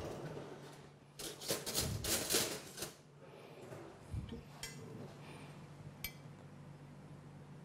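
A metal spoon clinking and scraping against a small glass bowl of foamy yeast mixture for about two seconds, followed by a few faint clicks.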